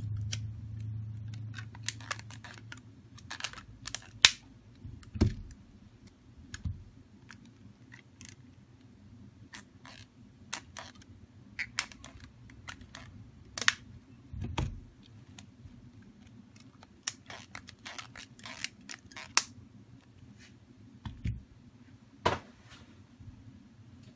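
Irregular sharp clicks and snaps as rubber bands are stretched around a smartphone and slap against its glass and frame, holding a newly fitted replacement screen in place, with handling knocks of the phone on the mat. A faint low hum runs underneath.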